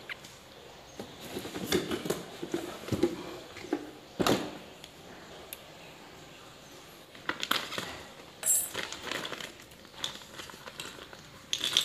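Clear plastic bag crinkling and rustling in the hands, with light knocks and clicks from a plastic RC truck and its cardboard box being handled, coming in irregular bursts with a short quiet spell midway.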